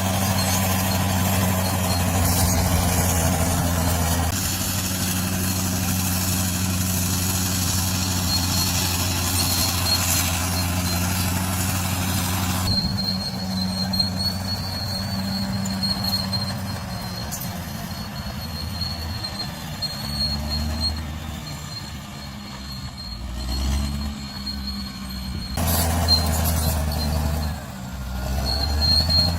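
Bulldozer's diesel engine running under changing load, its low drone shifting in pitch and strength several times. A thin, steady high squeal runs through the middle part.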